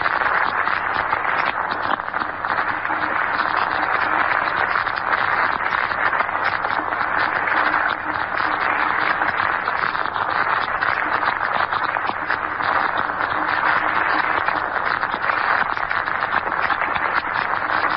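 Steady hiss of static on an open radio line, in an old broadcast recording, while the network switches to a remote station. A faint low hum runs under the hiss.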